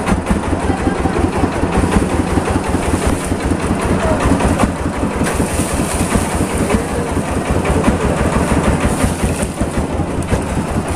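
A motor engine running steadily at idle, with a low, even, rapid pulse.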